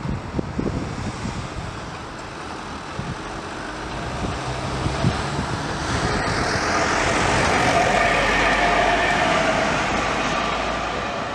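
A road vehicle passing close by: engine and tyre noise that builds over several seconds, is loudest about two-thirds of the way through, then fades. Wind buffets the microphone in the first second.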